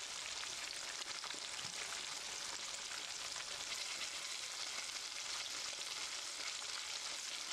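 Cornmeal-coated catfish fillets deep-frying in hot oil: a steady sizzle with fine crackling.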